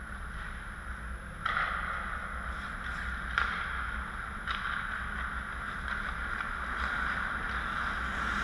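Hockey skate blades scraping and carving on rink ice, with a steady low rumble underneath. It sets in with sudden scrapes about a second and a half in and again a little later, with a sharp click of a stick or puck about three and a half seconds in.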